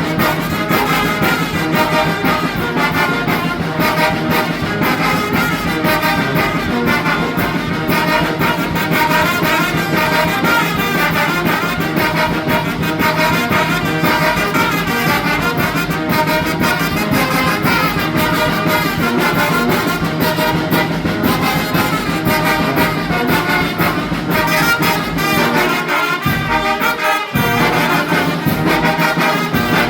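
Mexican banda, a brass band, playing a huapango, with trumpets and trombones carrying the tune over a steady low accompaniment. The low end drops out briefly about 26 seconds in, then returns.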